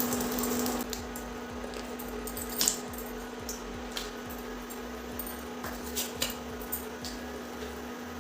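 A few scattered light clinks of a spoon against a metal kadhai as ghee is spooned in, over a steady low hum.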